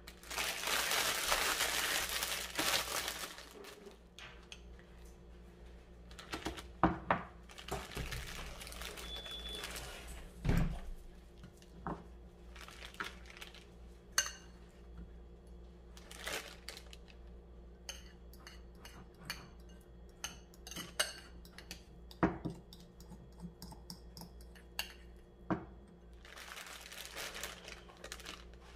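Kitchen handling sounds: cutlery and dishes clinking with scattered knocks. A rush of noise fills the first three seconds and comes back near the end, over a steady low hum.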